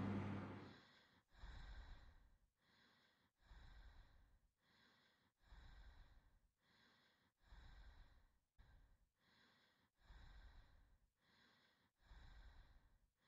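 Near silence with very faint, slow rhythmic breathing, about one breath every two seconds, after a louder sound fades out in the first moments.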